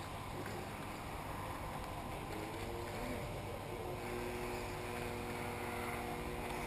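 Motors of 1/10-scale 4WD RC buggies running on the track, heard as a steady mechanical hum with a few steady whining tones coming in about halfway through, over wind noise on the microphone.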